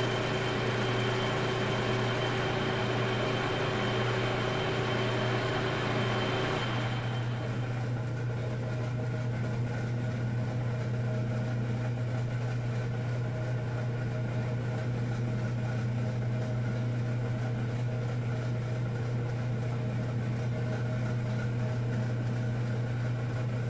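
Metal lathe running while facing a brass valve part: a steady motor hum under a hiss of the tool cutting, with a few steady whining tones. The cutting hiss stops abruptly about seven seconds in, and the lathe runs on with only its hum.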